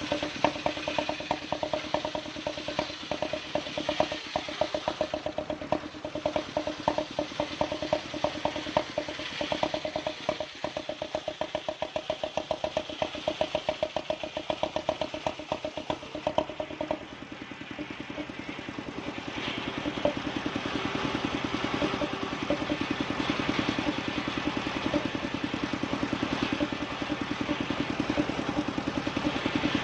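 Engine of a wood-sawing machine running steadily with a fast, even beat. About 17 seconds in the beat and tone shift as the load on it changes.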